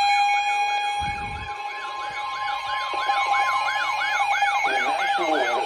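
Electronic siren in a fast yelp, rising and falling about three to four times a second over a steady high tone, with a brief low thump about a second in.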